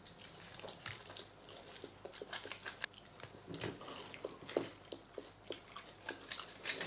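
Chewing and biting chicken nuggets: faint, irregular wet clicks and small crunches from mouths eating quickly.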